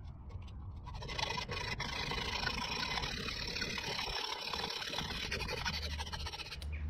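Hacksaw cutting through the protruding end of an 8 mm coach bolt: a steady run of rasping metal-on-metal strokes that starts about a second in and stops just before the end, over a low background rumble.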